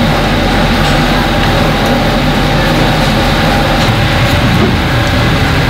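Steady, loud rushing rumble of a commercial grill's exhaust hood fan, with a few faint metal clinks as the wire skewer racks of chicken are turned on the grill.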